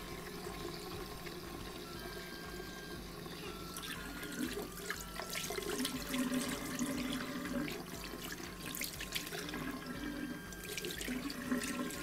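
Tap water running steadily into a ceramic washbasin. From about four seconds in, a sponge brush scrubs and swishes inside a ceramic cup held under the stream, adding irregular splashing and rubbing.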